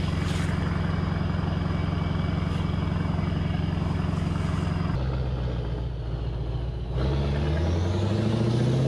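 Heavy diesel engine of an Iskander-M missile launcher truck running at a steady pitch. Near the end it revs up, its pitch rising over about two seconds.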